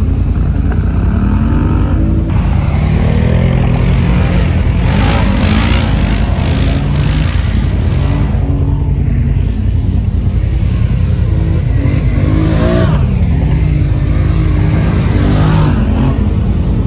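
ATV engines revving up and easing off several times as the quads ride around on loose sand, over a steady low engine rumble.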